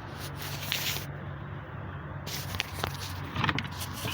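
Plastic clicks and rustles of parts being handled while a new air filter is fitted into a BMW engine bay, over the steady low hum of an idling car engine.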